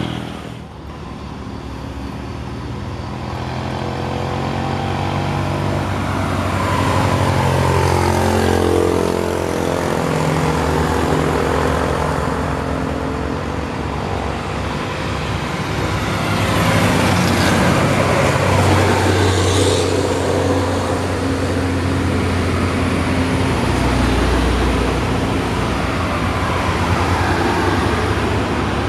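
Heavy diesel trucks and other traffic passing on a hill road: a Hino dump truck, a bus and motorcycles. The engine notes rise and fall as the vehicles come and go.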